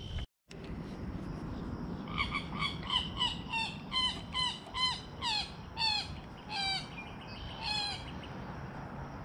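A wild frog or waterbird calling from the lake margin: a series of about a dozen ringing notes, about three a second at first, then slower, the last few longer and falling in pitch.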